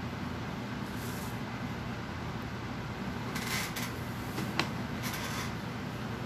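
A steady low hum, with a few brief rustles and one sharp click a little past the middle.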